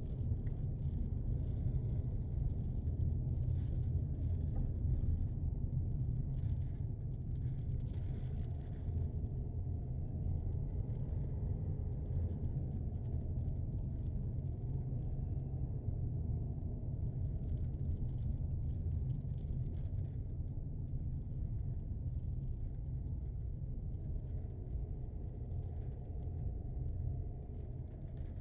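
Steady low rumble of a car driving slowly in town, heard from inside the cabin: engine and tyre road noise, with faint light ticking and hiss now and then in the first few seconds.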